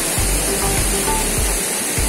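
Constant rush of a waterfall mixed with background music: short held melody notes over a steady bass beat.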